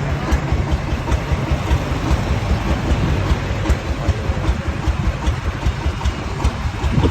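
Single-cylinder diesel engine of a công nông farm truck running, with a fast, even low beat.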